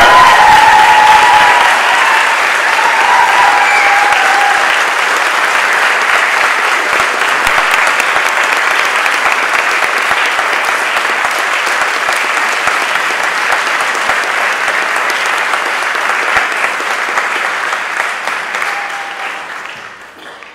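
Audience applauding, with a few whoops and cheers in the first few seconds. The applause fades away near the end.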